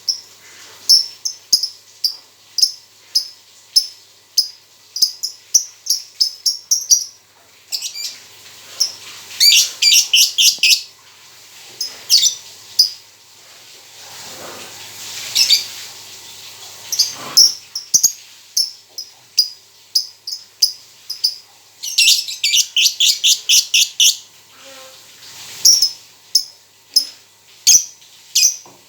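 A pet songbird singing: a long run of short, sharp, high chirps repeated at a steady pace, broken by fast rattling trills about ten seconds and about twenty-two seconds in.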